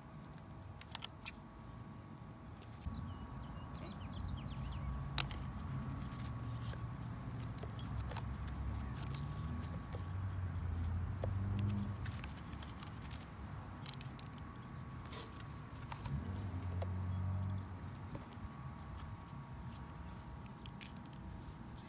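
Scattered light clicks and rattles of battery-pack clamps being handled, over a low rumble that swells up for several seconds in the middle and again briefly near the end.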